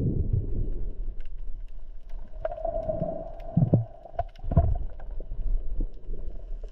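Underwater ambience: a low rush of water that eases off, with scattered small clicks and a held mid-pitched tone for about two seconds in the middle.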